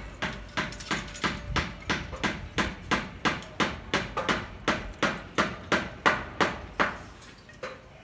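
Steady hammering, about three sharp blows a second, each with a brief ring, stopping near the end.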